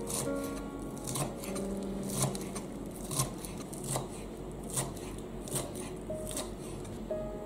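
Chef's knife chopping flat-leaf parsley on a wooden cutting board, the blade striking the board in even strokes about once a second.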